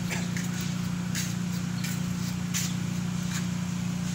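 A steady machine hum with faint light ticks recurring under a second apart.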